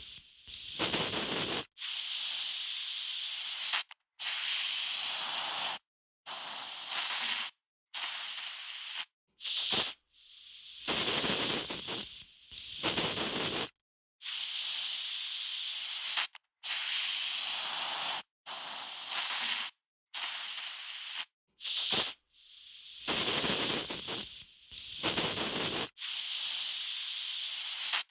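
Aerosol spray can hissing in a run of short sprays, each about half a second to two seconds long, each cut off abruptly before the next.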